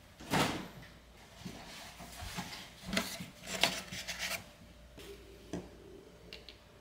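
Kitchen handling sounds: a refrigerator door opening just after the start, then a cardboard egg carton being handled and opened with rustles and small clicks, and a light tap as an egg is set down near the end.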